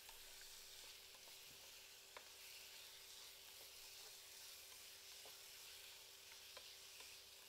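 Minced meat frying faintly in a small saucepan, a soft sizzle, with a few light clicks and scrapes as a plastic paddle stirs it against the pan. A faint steady hum sits underneath.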